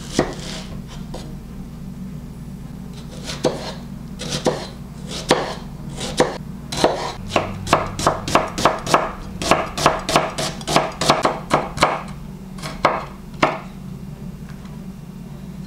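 Chef's knife cutting a sweet onion against a bamboo cutting board. A few single cuts come first, then a quick, even run of chops at about three a second for around five seconds, and two last chops near the end.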